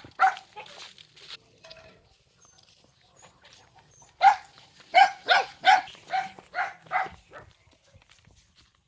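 A dog barking: a couple of barks at the start, then a run of about eight quick barks in the middle.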